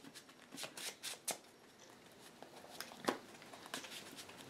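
Faint, scattered clicks and light scrapes of trading cards being handled and set down on a table, the loudest about three seconds in.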